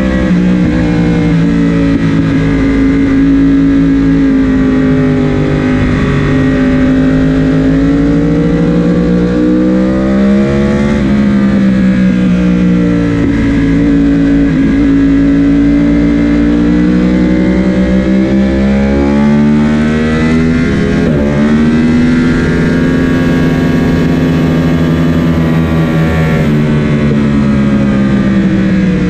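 Onboard sound of a sport motorcycle's engine pulling hard at high revs around a race track, its note dipping and climbing again several times as the rider rolls off, shifts and gets back on the throttle through the corners. Wind rush sounds under the engine at speed.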